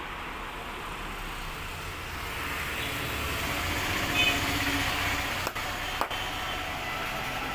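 Street traffic noise, a steady din of passing vehicles, with two sharp clicks about half a second apart some five and a half seconds in.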